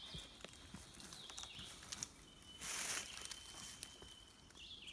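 Faint rustling, scraping and small knocks of wood as poplar poles and branches are handled, with one brief, louder scraping rustle a little past halfway. Short bird chirps come near the start and end, and a thin steady high tone is held for about two seconds in the middle.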